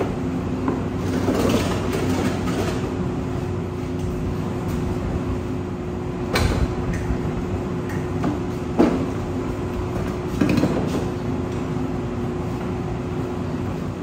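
Push lawn mowers rolled on their plastic wheels across a concrete floor and onto a steel diamond-plate lift table: a rolling rumble with a few clunks and knocks, over a steady background hum.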